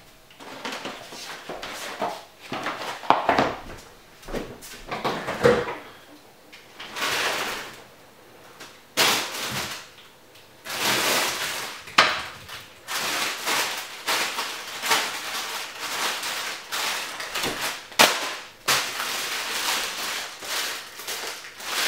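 Fridge door opened and food moved about on its shelves: a string of irregular clicks, bumps and short rustles, among them a plastic bag of greens being handled.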